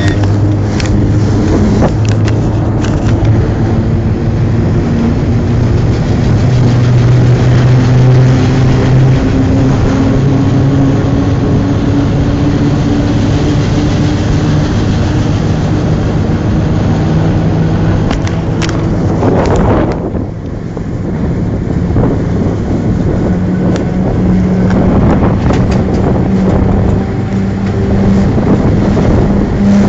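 Train locomotive running under way, heard from on board the engine: a loud, steady engine drone whose tones shift slowly in pitch, with wind noise on the microphone and a few sharp clicks.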